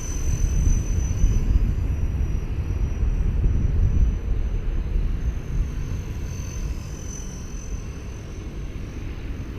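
Electric 230S RC helicopter in flight: a thin, steady high whine from its motor and rotor that wavers slightly, over a heavy low rumble that eases a little in the second half.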